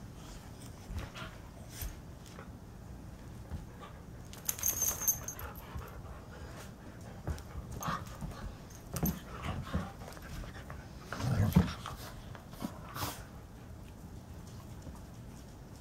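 Two dogs, an Alaskan Husky and a young Karelian Bear Dog, roughhousing on a rug: irregular scuffles and bumps with dog vocal sounds, and the loudest burst about two-thirds of the way through.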